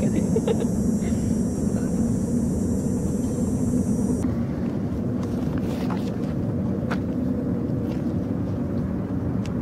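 Steady low outdoor rumble, with a high steady hiss over it that cuts off about four seconds in.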